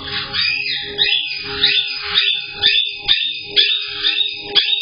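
Caique parrots calling over and over, high-pitched calls with sharp starts at about two a second, picked up through a security camera's narrow-band microphone.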